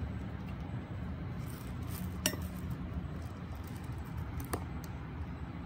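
Two short, sharp clinks, about two seconds apart, as sport water bottles are handled and set down on a hard surface, over a steady low background hum.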